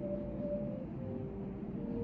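Soft, slow background music, with a few held notes changing pitch, over a low steady room hum.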